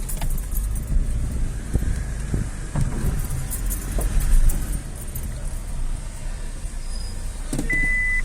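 Chevrolet Onix car running with a low steady rumble, with a few scattered knocks and clatters. A short steady beep sounds near the end.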